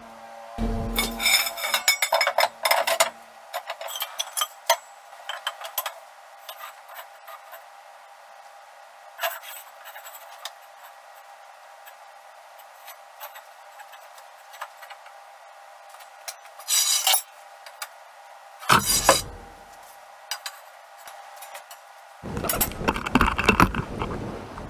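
Steel carrier frame parts and square steel tubing clanking, clinking and scraping as they are handled and set down. The knocks come scattered, with a longer run of clattering near the end.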